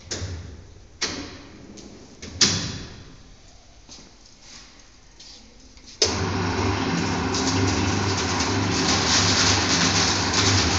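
A few sharp knocks in the first seconds, then about six seconds in the BOPP adhesive tape slitting machine starts abruptly and runs with a steady low hum under a dense rushing noise.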